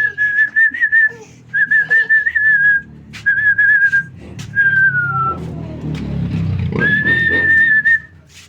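A person whistling to call a dog: about five warbling whistled phrases, each about a second long, one of them sliding down in pitch. A low rumbling noise rises in the middle.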